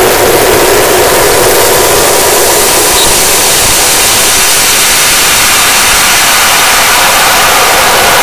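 Noise music: a loud, unbroken wall of static-like noise with no beat or melody, densest in the middle register, its upper hiss growing brighter about two seconds in.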